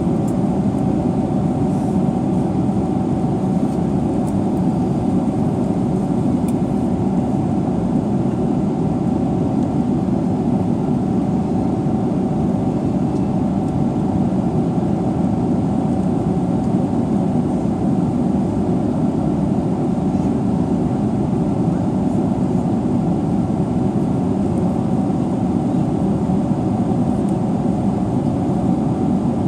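Steady cabin noise inside a Boeing 777-300ER: the even, low-pitched noise of the jet's engines and air systems, with a faint steady hum, unchanging throughout.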